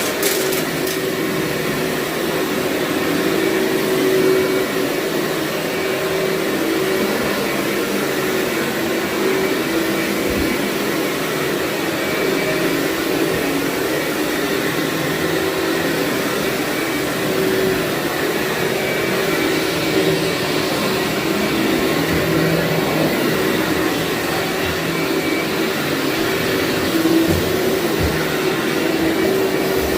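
Vacuum cleaner running steadily over carpet, its motor giving a constant whine over the noise of the suction.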